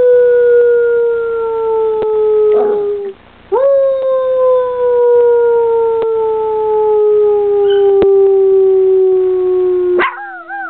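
Poodle puppy howling. One long howl, slowly falling in pitch, ends about three seconds in. A second howl then rises sharply and slides slowly down for about six seconds before breaking into a short wavering yip near the end.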